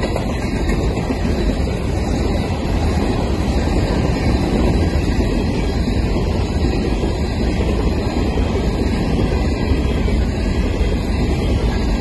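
Steady rolling rumble of a long BNSF coal train's cars moving along the track, with wind noise on the microphone.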